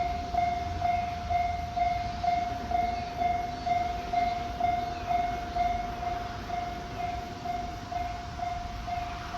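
Japanese level-crossing warning bell ringing: an electronic ding repeating evenly about twice a second, over a low rumble.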